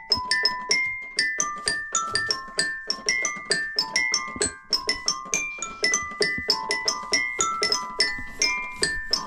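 Red plastic toy keyboard played one note at a time: a plinking, bell-like tune of about two to three notes a second that steps up and down.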